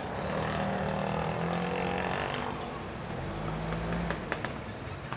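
A motor vehicle's engine going by on the road, a steady hum that fades after about two and a half seconds, then a second, shorter engine hum, followed by a few sharp clicks.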